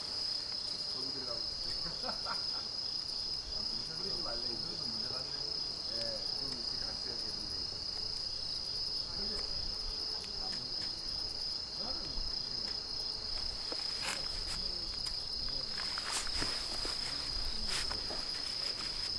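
Insects chirring outdoors, a steady high-pitched trill that runs unbroken, with a few sharp clicks or knocks in the last few seconds.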